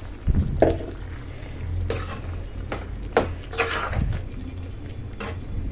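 A steel slotted ladle stirring thick curry gravy in a pan, with scattered clinks and scrapes of metal against the pan over a low steady hum.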